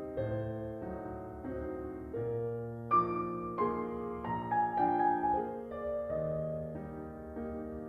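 Gentle piano music, with sustained notes and chords changing about every half second.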